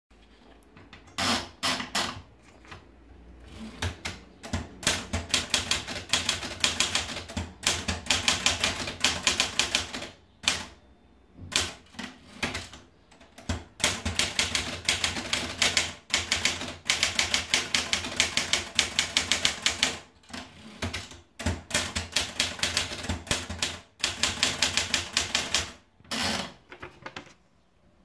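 Erika manual portable typewriter. Paper is wound in near the start, then the keys are typed in quick runs, the type bars clacking against the platen, with short pauses between runs.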